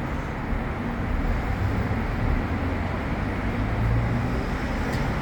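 Steady mechanical running noise with a low hum, even throughout, with no distinct events.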